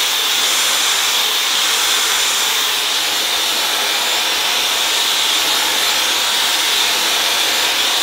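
Dyson Supersonic hair dryer running steadily while drying hair: a loud, even rush of air with a faint high steady tone above it.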